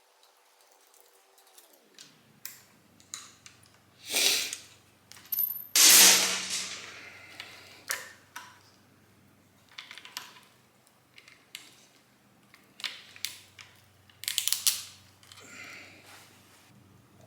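Clicks, knocks and rattles of motorcycle parts and hand tools being handled, with two louder rustling bursts about four and six seconds in.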